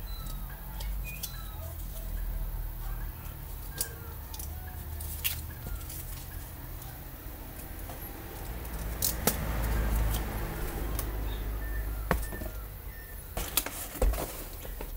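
Snap-off utility knife scraping and cutting through thin cardboard, with a longer stretch of scratchy cutting about two-thirds through and sharp clicks of the knife and card being handled near the end. Short, faint bird chirps sound in the background.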